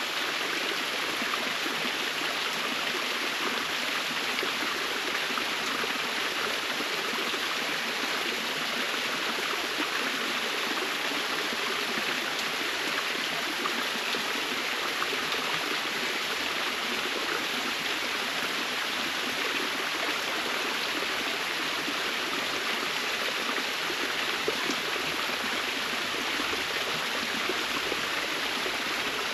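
Waterfall in a forest: falling water splashing with a steady, even rush of noise.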